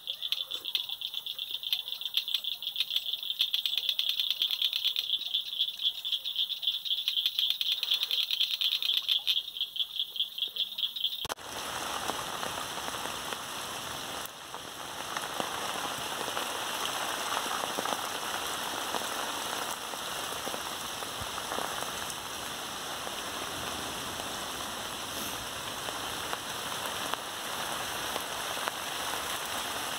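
A chorus of insects calling, a steady pulsing high buzz, cuts off about eleven seconds in to steady rain falling on a river.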